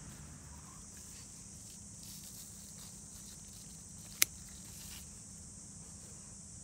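Harvest shears snipping through a cucumber stem once, a single sharp click a little past the middle. Behind it, a steady high chirring of insects.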